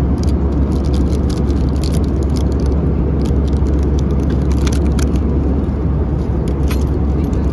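Steady, deep cabin rumble of an Airbus A320-200 in flight, with a clear plastic bag around a croissant crinkling in hand, thickest through the first five seconds and again briefly near the end.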